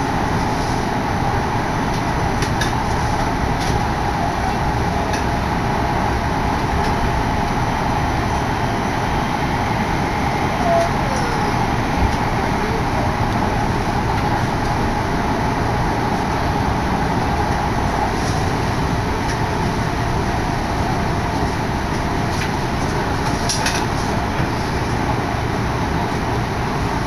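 Odakyu Odawara Line electric commuter train running at speed, heard from inside the carriage: a steady running noise of wheels on rails, with a few faint clicks.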